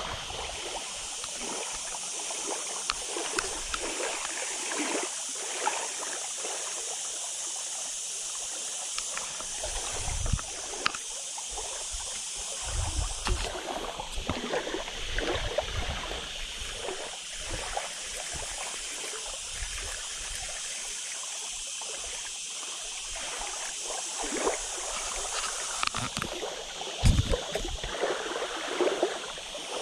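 Small waves lapping and trickling at a muddy lake shore, a steady wash of water, with occasional low rumbles and knocks.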